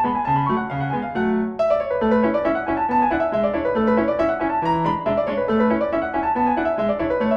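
Background piano music, a steady stream of quick notes whose melody runs up and down.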